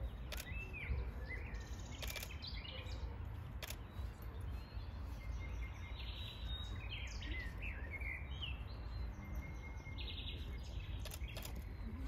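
Small birds chirping on and off over a steady low rumble, with a few sharp clicks.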